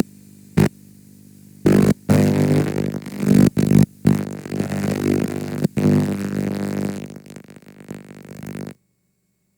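Damaged VHS tape playback: loud, distorted bursts of noise over a buzzing hum. The sound drops out briefly several times, then cuts off suddenly near the end.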